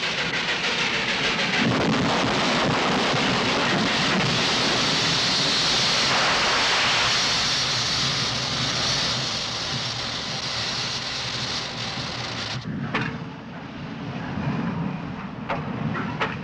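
Loud, steady hiss and rush of steam escaping from a wrecked steam locomotive. It cuts off abruptly about thirteen seconds in, leaving quieter rumble with a few sharp knocks.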